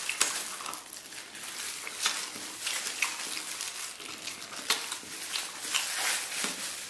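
Close-miked chewing and biting into stewed lamb on the bone: a string of irregular short mouth clicks.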